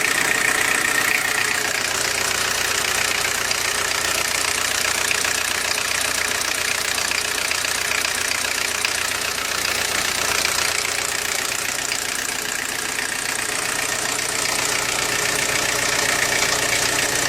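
A motor or engine running steadily, with an even mechanical noise and a steady high hum.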